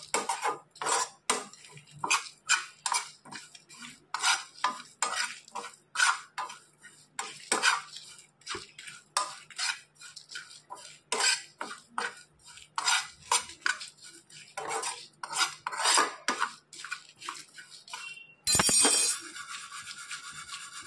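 A spatula scraping and stirring whole spices (coriander seeds, cumin, peppercorns and dried red chillies) as they dry-roast in a nonstick frying pan, in strokes about twice a second with the seeds rustling against the pan. Near the end a louder steady hiss sets in.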